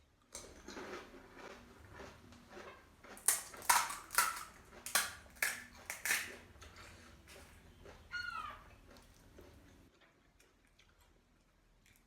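Close-up crunching of crisp panipuri shells being chewed: a run of loud crunches, about two a second, between roughly three and six and a half seconds in. A brief pitched sound that bends up and down follows about eight seconds in.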